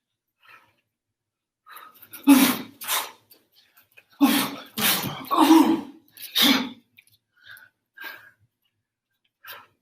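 A person's short, explosive vocal bursts, forceful breaths or shouts, six of them in about four and a half seconds in two quick groups, with a few faint sounds before and after.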